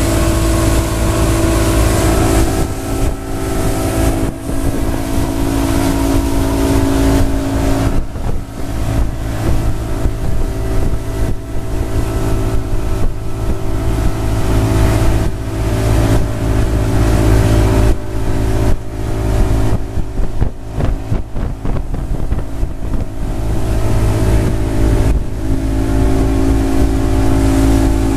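Mercury outboard motor running steadily at towing speed, its engine note holding an even pitch. Wind buffets the microphone on and off, most through the middle.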